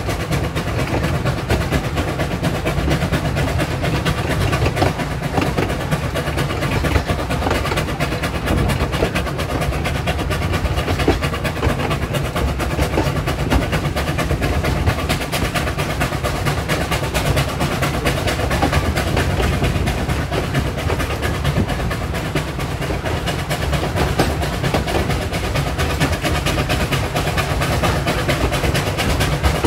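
Narrow-gauge steam locomotive running with its train, heard from close behind the engine: a steady, loud mix of exhaust and wheels clattering on the rails.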